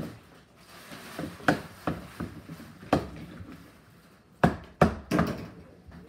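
A metal spoon stirring slime in a plastic bowl, knocking several times against the bowl. The knocks are short and sharp, with the loudest two coming close together a little past the middle.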